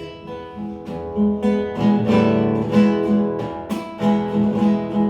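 Acoustic guitar strummed and picked in a steady rhythm of chords, several strokes a second.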